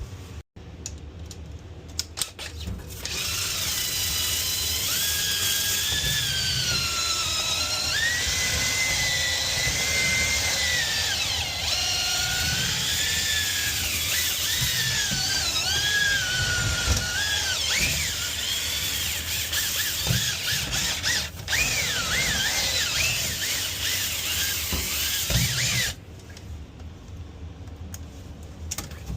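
Power drill spinning dryer-vent cleaning rods and brush through the duct, with a whine that wavers up and down in pitch. It starts about three seconds in and stops a few seconds before the end, leaving a few clicks and knocks.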